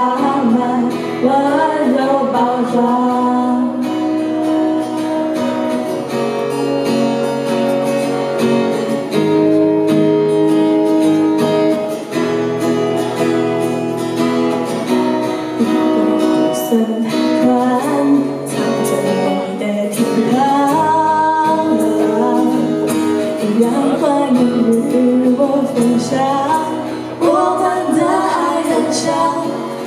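Music: a song with guitar and singing over sustained chords.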